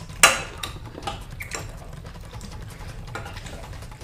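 Eating utensils clinking and knocking against dishes: one sharp ringing clink about a quarter second in, then a few lighter taps.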